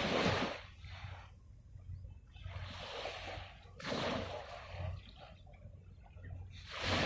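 Small waves lapping and splashing against the shore in surges every couple of seconds, over a low steady rumble.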